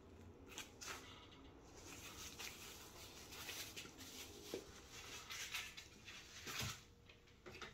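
Faint rustling of bubble-wrap packaging and handling noises as a metal diamond flat lap disc is unwrapped and moved about, with a few light knocks, the clearest about four and a half and six and a half seconds in.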